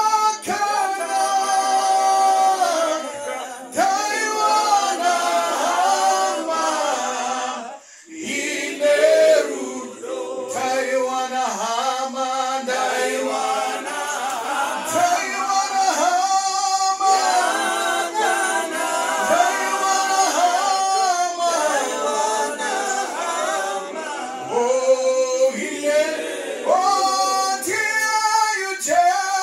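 A group of men and women singing a hymn together without instruments, one man's voice amplified through a handheld microphone, with a brief pause about eight seconds in.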